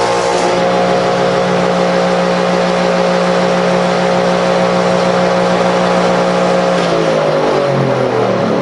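Delta Rockwell 18-inch planer (model 22200, 5 hp belt-drive motor) running loud and steady, then switched off about seven seconds in, its pitch falling as the cutterhead and motor coast down.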